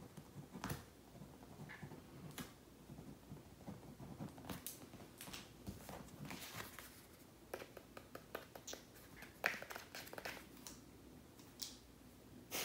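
Pen scratching across a small sheet of paper in short, irregular strokes, faint, with occasional small taps and paper rustles.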